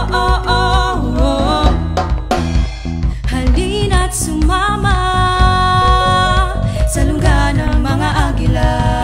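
A song: a solo voice sings a melody, holding some notes with vibrato, over instrumental backing with a steady beat.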